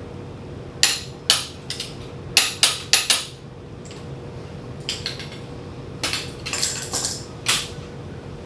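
Sharp metallic clicks and clinks of a torque wrench and counter-holding tool on a BMW N62 V8's camshaft sprocket bolt, a quick run of them about a second in, then scattered rattles and scraping of the tools being handled.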